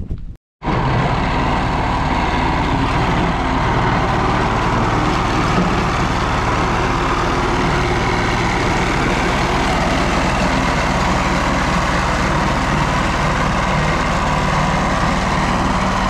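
Small walk-behind vibratory roller compactor's engine running steadily under load as the roller compacts footing soil, starting abruptly about half a second in.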